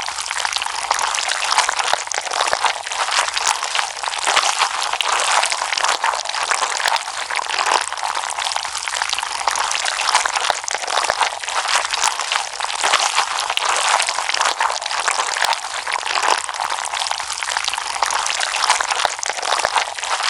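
Slime being squeezed and stretched by hand: a steady wet crackling made of many tiny pops and clicks.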